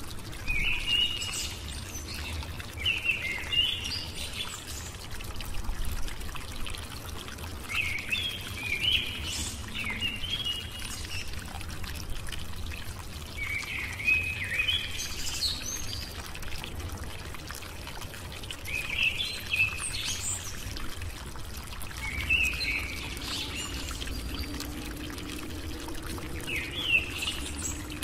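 Bird song: short chirping phrases repeated every few seconds over a steady low background noise.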